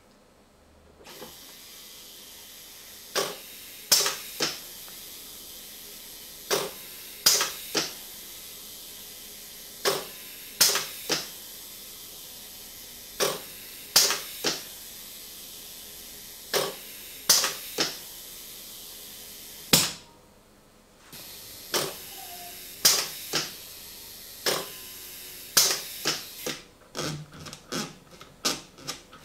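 Pneumatic repeat timer circuit cycling: a steady hiss of air, with a group of two or three sharp valve clicks and air puffs about every three and a third seconds as the timers switch the indicator on and off. The hiss stops for about a second before the cycle resumes. Near the end comes a fast run of small clicks from a timer's thumbwheel setting dial being turned by hand.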